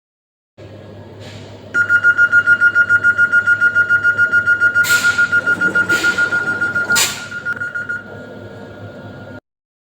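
A train's warning buzzer (ronfleur) sounding as a loud, fast-pulsing high beep for about six seconds over a low steady hum, with three short hissing bursts near its end.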